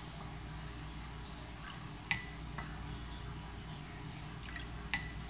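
Sharp clinks of a glass bottle and spoon against a small bowl while rice wine is measured out by the spoonful: one about two seconds in and two close together near the end.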